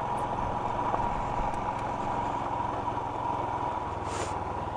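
Motorcycle engine running steadily while riding; its note changes about four seconds in, with a brief hiss at the same moment.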